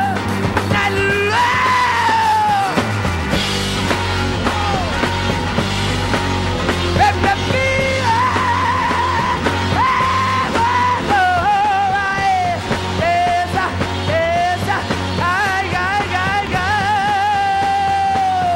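Live late-1960s hard rock from a power trio of electric guitar, bass and drums, with a male lead singer wailing and yelling wordless high notes with vibrato. He holds one long note near the end.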